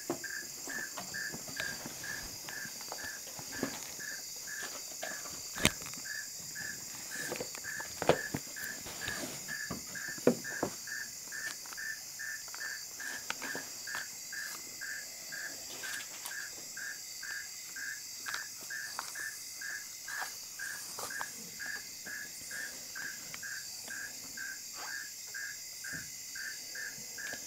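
Crickets chirping in a steady rhythm, about two chirps a second, over a steady high-pitched insect drone. A few soft clicks and rustles of Bible pages being turned stand out about a third of the way in.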